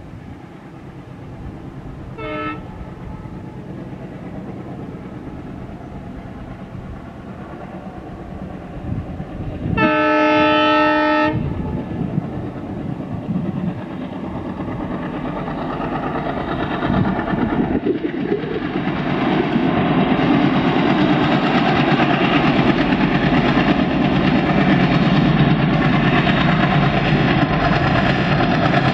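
Twin WDG-3A diesel-electric locomotives, each with an ALCO 251 16-cylinder turbocharged engine, working in notch 8 (full throttle) at the head of a BCNA freight train and growing louder as they come through a tunnel. The horn gives a short faint toot about two seconds in and a longer blast about ten seconds in.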